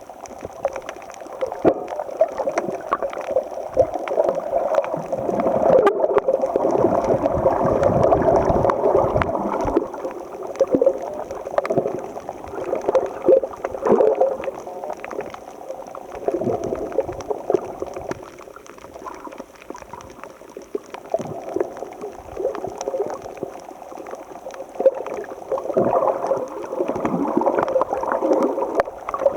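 Muffled water sloshing and gurgling as heard by a camera in the sea, swelling and ebbing with the surge; it is loudest a few seconds in and again near the end.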